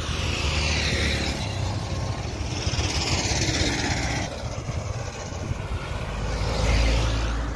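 Vehicles passing on a road, their noise swelling and fading several times, over a low wind rumble on the microphone.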